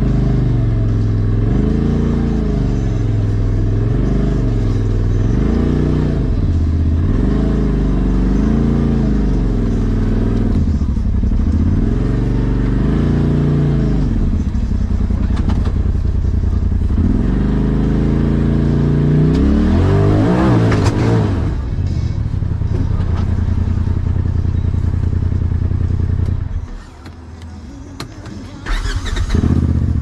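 Polaris RZR Turbo S side-by-side's engine revving up and down over and over, about every second or two. It then holds steadier, gives one long hard rev about two-thirds of the way through, and drops away briefly near the end.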